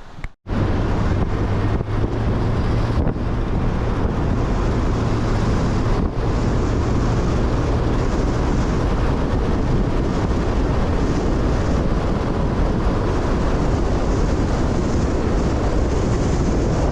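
An engine running steadily under way, a constant low hum with loud wind rush over the microphone.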